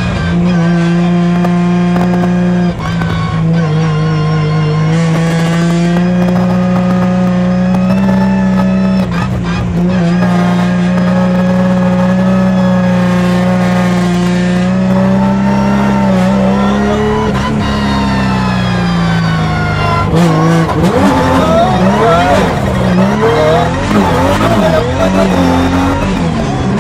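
Toyota 86 drift car fitted with a Nissan R35 GT-R twin-turbo V6, drifting with its tyres squealing. The engine is held at one steady high-revving note for about twenty seconds. Near the end, heard from inside the cabin, the revs swing rapidly up and down.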